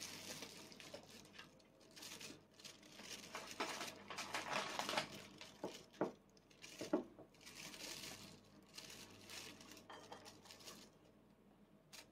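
Plastic packaging crinkling and tearing, with a couple of sharp clicks, as a natto pack is opened. The rustling comes in irregular bursts and dies away near the end.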